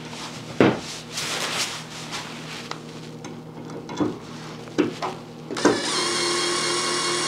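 A few light metal clicks as the screw and driver bit are set into the anchor held in locking pliers, then, about a second and a half before the end, a cordless drill starts and runs at a steady speed, driving the screw to set the anchor tight against the aluminium cover.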